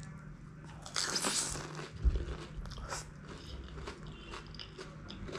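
A crisp pani puri shell filled with curd crunching as it is bitten, loudest about a second in, then crunchy chewing with scattered crackles. A dull thump sounds about two seconds in.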